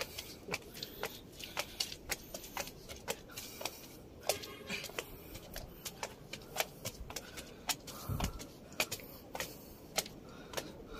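Footsteps climbing stone stairs: sneaker soles tapping and scuffing on the steps, a quick, irregular run of light clicks a few times a second.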